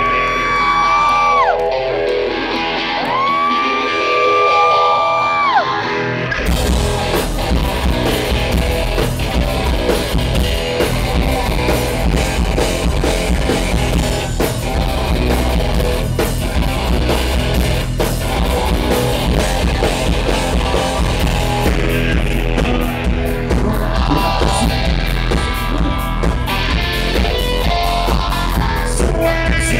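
Live rock band playing loud. The song opens with two long notes that slide up, hold and slide back down. About six seconds in, the full band comes in with drums and bass.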